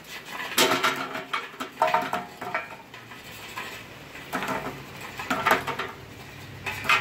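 Charcoal briquettes added by the handful onto hot coals in a grill, clinking and clattering in about five short bursts.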